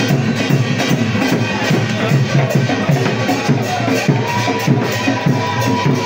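Loud music with a fast, steady drum beat; a long held high note comes in about four seconds in.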